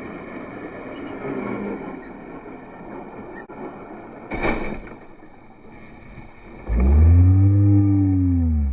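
Traxxas X-Maxx 8S electric RC monster truck driving, its rumble steady for several seconds with a short burst of noise about halfway. Near the end its motor revs up and back down in one loud whine that rises and falls.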